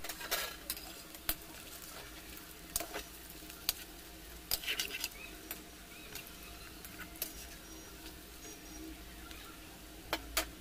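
Onion pakoras deep-frying in hot oil in a kadai: a steady sizzle with scattered sharp crackles and clicks, as a spatula stirs and taps the pan now and then.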